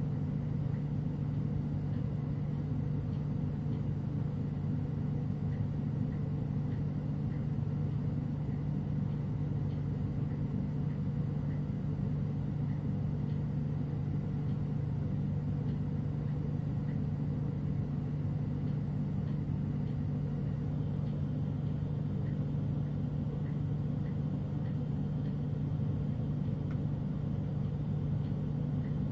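Steady low rumble of a glassworking bench torch burning, with a constant hum underneath.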